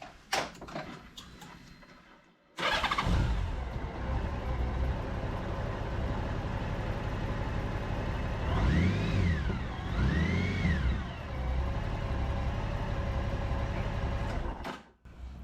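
Honda GL1800 Gold Wing's flat-six engine started about two and a half seconds in, idling steadily, blipped twice with revs rising and falling, then switched off near the end. It is run briefly after an oil change so the new filter fills before the oil level is rechecked.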